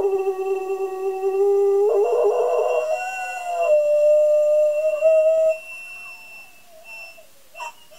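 Greyhound rooing: one long, drawn-out howl that lifts a little in pitch partway through and dies away about two-thirds of the way in.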